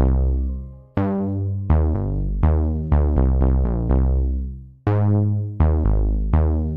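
Electronic background music: synthesizer notes with deep bass, struck one after another in a steady rhythm, each note fading away.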